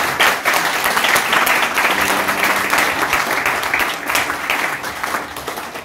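Congregation applauding: dense clapping from many hands that eases off near the end.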